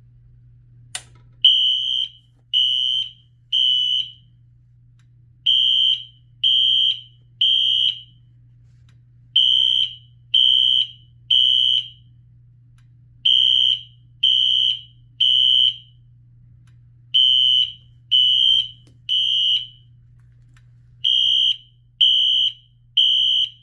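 Wheelock NS fire alarm horn sounding the Code 3 temporal pattern, the standard evacuation signal: three high-pitched beeps of about half a second, then a pause, repeated six times. A sharp click comes about a second in, just before the first beeps.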